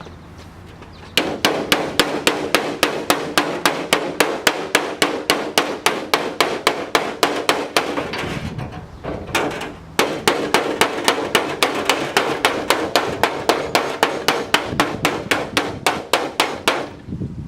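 Rapid hammering on sheet metal, about five sharp blows a second, with the panel ringing faintly under the strikes. The blows start about a second in and break off briefly near the middle.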